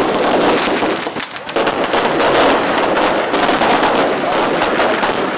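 A string of firecrackers going off in a rapid, irregular crackle of bangs, with a brief lull about a second and a half in.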